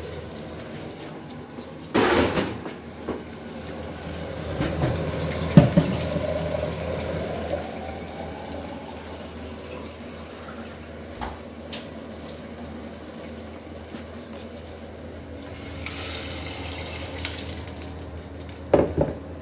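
Water running into a soup pot as it is filled, the pitch rising over a few seconds as the pot fills, then settling into a softer trickle. A couple of sharp knocks near the end.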